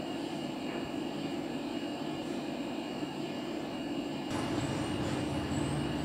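Steady background hum with a few faint constant tones. A low rumble comes in about four seconds in and carries on.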